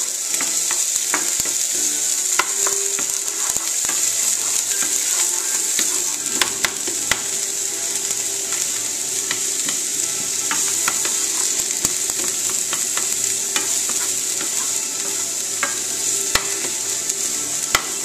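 Carrot sticks and ginger sizzling in a non-stick frying pan with a steady hiss, stirred with a wooden spoon that knocks and scrapes against the pan in frequent short clicks.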